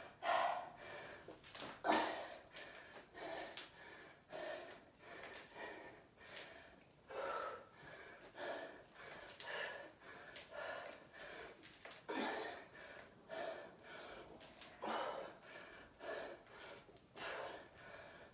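A woman breathing hard with exertion, a loud puffed breath about once a second, in time with repetitions of a dumbbell squat exercise.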